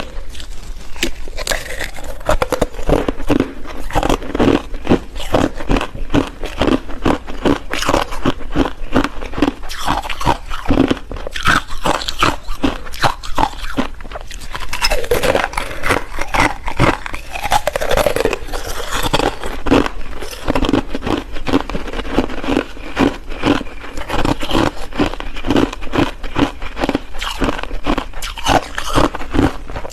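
Ice being bitten and chewed close to the microphone: a dense, continuous run of sharp crunches and cracks.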